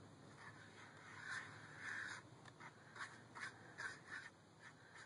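Faint pen tip scratching and dabbing on watercolor journal paper in short, irregular strokes.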